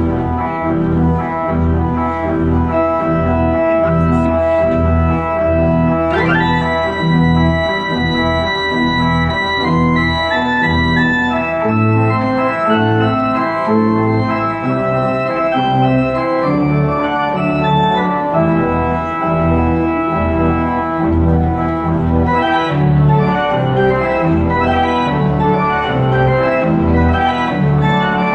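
Church pipe organ playing a lively, bouncy piece with full chords over a rhythmic bass line. About six seconds in, a quick upward sweep leads into a high note held for a few seconds.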